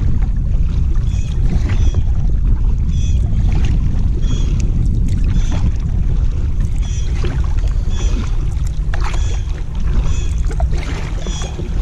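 Kayak paddling: double-bladed paddle strokes dipping into the water, with splashes and drips off the blades, over a constant low rumble.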